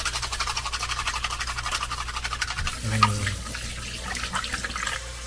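Rapid rhythmic scrubbing of a scallop shell by hand over a stainless-steel sink, with the tap running over it in the second half.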